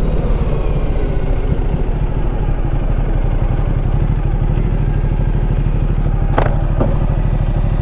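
Motorcycle engine running steadily at low road speed, its note dipping slightly in the first second. Two short knocks come about six and a half seconds in.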